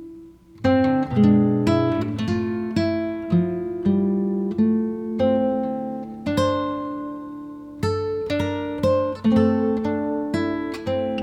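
Background music of acoustic guitar, plucked and strummed chords, pausing briefly near the start and then playing on.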